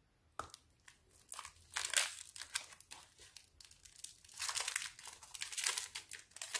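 Foil-and-paper chocolate bar wrapper crinkling in irregular bursts, fuller over the last two seconds.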